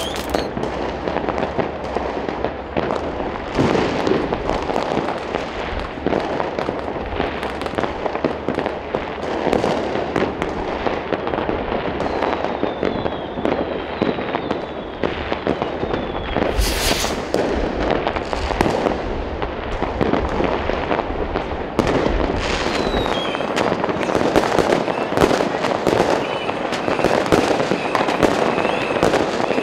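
New Year's Eve fireworks and firecrackers going off all around in a dense, continuous crackle of pops and bangs, with a few falling whistles from rockets.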